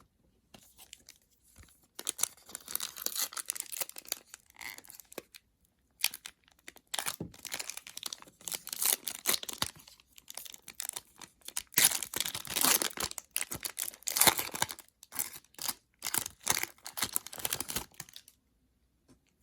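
Crinkling and tearing of trading-card pack wrapping, in irregular stretches of rustling with short pauses between them.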